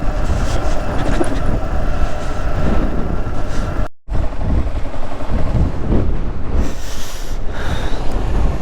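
Riding noise of a Yamaha R15 single-cylinder motorcycle on the move: steady wind rush on the microphone over the engine's hum. The sound drops out completely for a moment about four seconds in.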